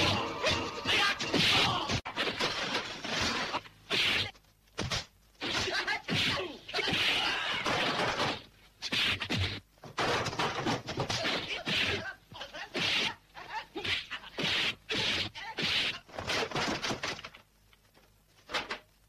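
Dubbed kung-fu film fight sound effects: a series of sharp punch and kick whacks with short gaps between them.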